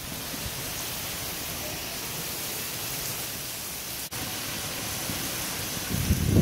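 Heavy thunderstorm downpour: a steady hiss of rain pouring onto grass and ground, briefly cut off about four seconds in, with low rumbling gusts swelling near the end.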